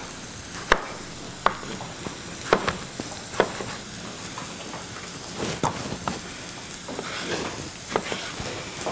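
Chopped onion and garlic sizzling steadily in oil in a cast iron skillet on high heat, with a chef's knife knocking sharply on a cutting board every second or so, unevenly, as tomatoes are sliced.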